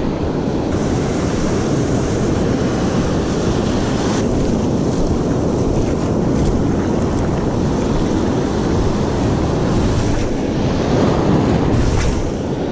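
Wind buffeting the microphone over the steady wash of surf on the beach.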